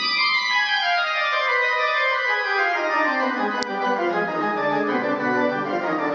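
Orchestra playing classical music: sustained high notes while a line descends steadily in pitch from the treble down into the bass.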